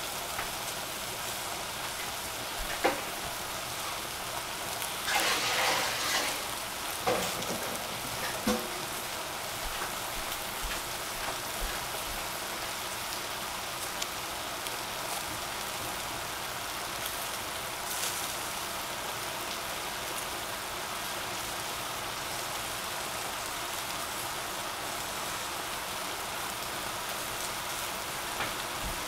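Oyster mushrooms and cabbage sizzling in a stainless saucepan on a gas burner: a steady hiss, with a few louder crackles and spatters in the first nine seconds or so.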